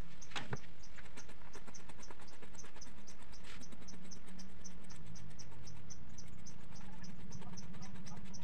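An insect chirping in an even rhythm, short high chirps about three a second, over a steady low hum. A couple of soft rustles near the start.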